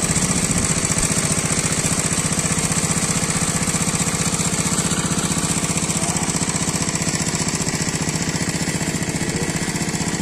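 A small engine running steadily with a rapid, even beat.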